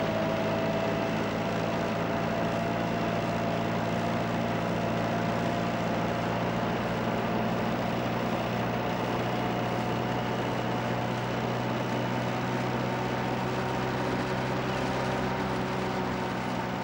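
Tractor engine running at a steady, even drone.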